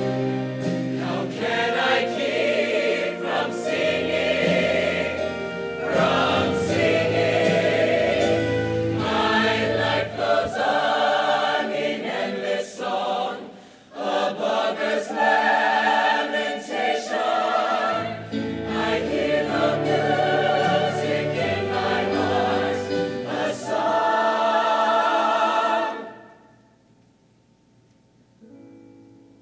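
Show choir singing in parts with musical accompaniment, with no clear words. The music cuts off suddenly a few seconds before the end, leaving a faint hush.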